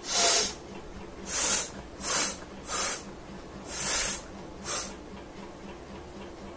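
A person blowing their nose hard in six short, hissing blasts, about one a second.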